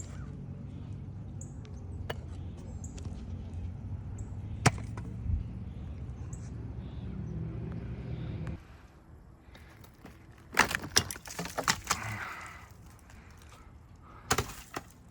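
A steady low motor hum with a sharp click partway through; the hum stops suddenly, then a quick run of sharp knocks and clatter follows, with one more knock near the end.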